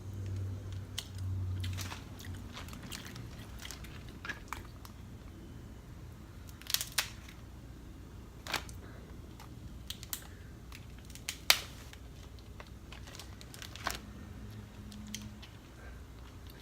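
Snow crab legs being cracked and their shells snapped apart by hand: a string of sharp separate cracks and clicks, the loudest about eleven seconds in. A low hum sounds during the first two seconds.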